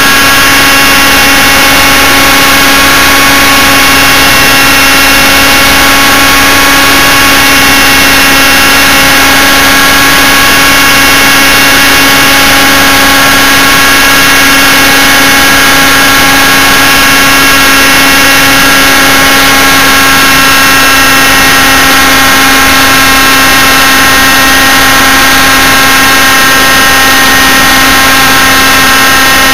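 Model helicopter's motor and rotor running at a steady speed in flight, picked up right on board: a loud, constant whine of several tones that holds its pitch throughout.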